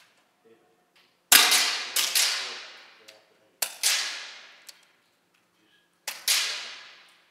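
Air rifle shots: four sharp cracks, each trailing off in a long echo off the walls of an indoor range.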